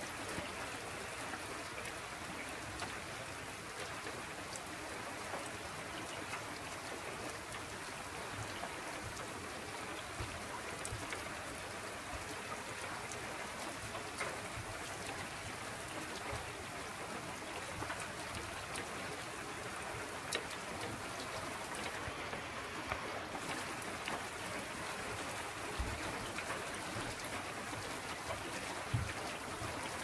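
Steady rain falling on a lake's surface, heavy enough that the drops raise bubbles: an even hiss of many drops hitting the water, with faint scattered individual drop ticks. A couple of brief low thumps come near the end.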